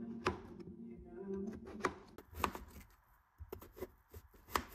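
Kitchen knife cutting peeled potatoes on a wooden cutting board: sharp knocks as the blade strikes the board, a couple early on and then a quicker, irregular run from about halfway through.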